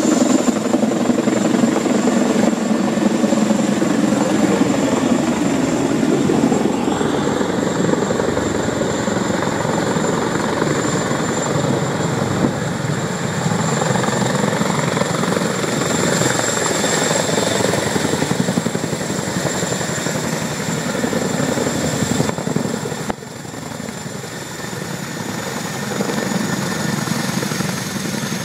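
U.S. Army CH-47 Chinook tandem-rotor helicopter descending and landing, its rotors beating loudly with a steady high whine above them. It turns a little quieter about two-thirds of the way through as it settles on the ground.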